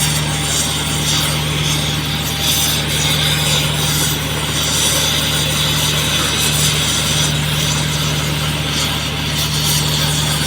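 Oxy-fuel gas torch flame hissing steadily as it heats an asphalt road joint, with a steady low engine-like hum underneath.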